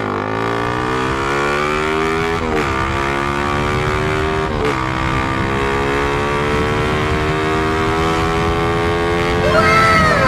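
Suzuki Raider 150 carburetted single-cylinder four-stroke with an HGM open pipe accelerating hard through the gears. The engine note climbs, then drops briefly at upshifts at the start and about two and a half and four and a half seconds in, and then climbs slowly in a higher gear. Near the end a second, higher sound rises and falls over it.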